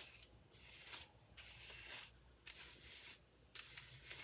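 Faint rustling strokes of hair being worked through as it is styled, about one stroke a second with short quiet gaps between.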